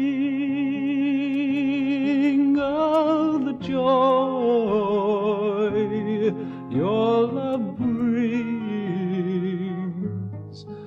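A hymn: one voice singing long held notes with vibrato over a steady accompaniment.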